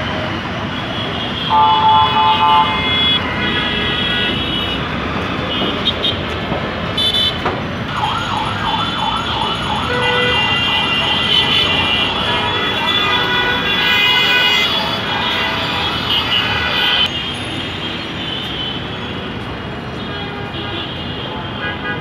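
Dense city traffic with a near-constant chorus of vehicle horns, the loudest a horn blast about two seconds in. From about eight to twelve seconds in a siren wails with a fast up-and-down warble.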